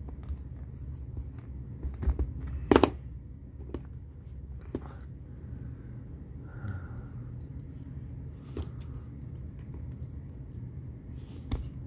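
Scattered metallic clicks and light scrapes of two pairs of pliers working a steel pop rivet apart, pulling its sleeve off the center pin. The sharpest clicks come about two and three seconds in.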